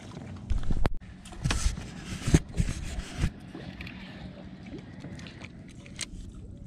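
Handling noise on a small fishing boat: several dull knocks and a sharp click in the first few seconds, the loudest about two and a half seconds in, then only a low steady background.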